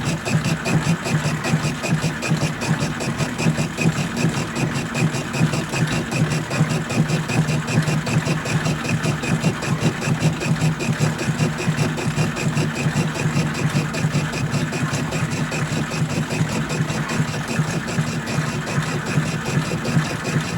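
1944 Logan 210 metal lathe driven by a three-phase motor on a variable frequency drive, running steadily under light load with a constant hum and a quick, regular pulsing from the turning drive.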